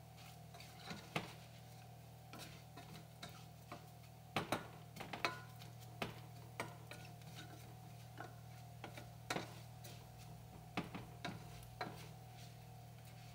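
A spoon stirring rice in a stainless steel pot, making irregular scrapes and taps against the pot, over a steady low hum.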